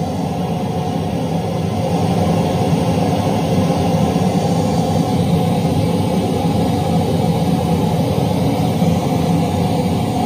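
Loud, steady, bass-heavy test noise played through a large sound-system speaker stack while it is being measured and tuned.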